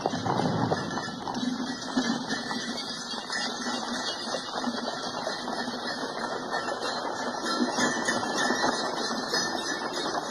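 Horse-drawn sleighs moving through snow, with a steady, rapid clatter and jingle of harness, hooves and runners.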